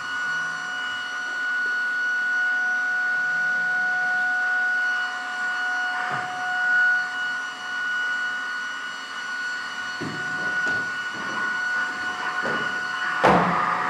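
Electronic drone from a live performance: a steady, high, whistle-like tone held over a weaker lower tone. A few knocks come in the last few seconds, the loudest just before the end.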